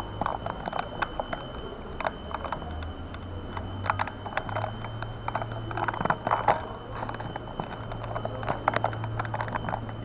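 Footsteps and wheeled carry-on suitcases being pulled along a jet bridge floor: a run of irregular clicks and rattles over a steady low hum.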